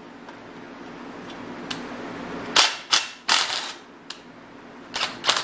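Cordless 18 V Bostitch impact driver hammering on an engine's cylinder head bolt to break it loose: a faint whir, then several short, loud bursts of rapid impacts from about halfway in.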